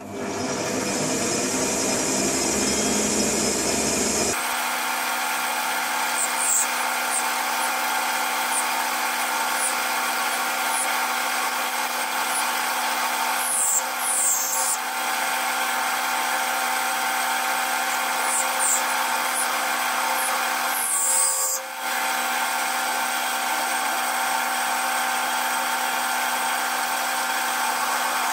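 Metal lathe starting up and running steadily, a whine of many steady tones, while a cutting tool turns a brass ramrod pipe. About four seconds in the low rumble drops away, and short high screeches from the cut come now and then.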